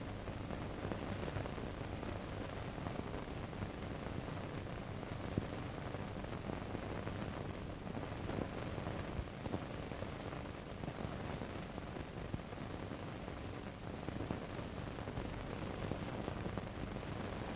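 Steady hiss with a low mains hum underneath: the background noise of an old analogue soundtrack, with an occasional faint click.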